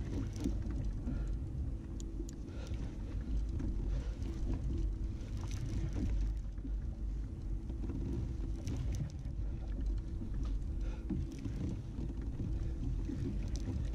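Steady low rumble with scattered short clicks and rattles from a conventional fishing reel being cranked while fighting a yellowtail.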